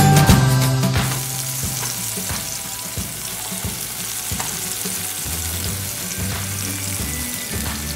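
Scallops searing in hot oil in a nonstick frying pan: a steady sizzle with scattered pops of spattering fat. Background music fades out in the first second.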